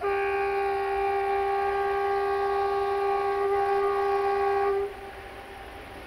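Air horn of an LDE2100 (060-DA) diesel-electric locomotive sounding one long, steady blast of about five seconds, starting sharply and cutting off suddenly.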